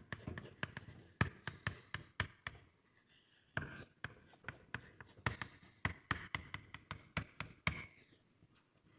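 Chalk writing on a blackboard: a quick, irregular run of sharp taps and short scraping strokes, thinning out near the end.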